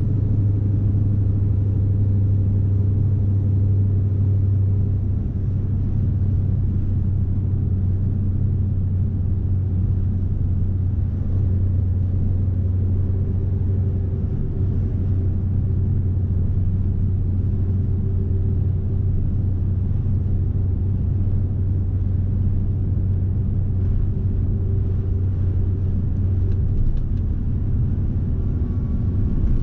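Scania S520's 16-litre V8 diesel running at a steady low drone as the truck drives along pulling a 38-tonne load, with road rumble.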